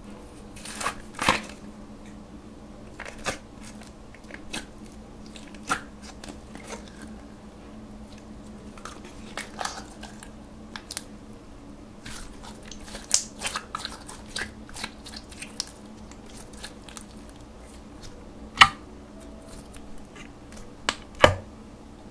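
Clear glitter slime being handled, taken from its plastic tub and stretched: irregular sticky pops and clicks, the two sharpest near the end, over a faint steady hum.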